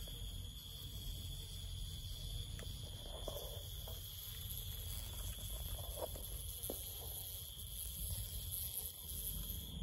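Insects trilling steadily at a high pitch, over a low rumble.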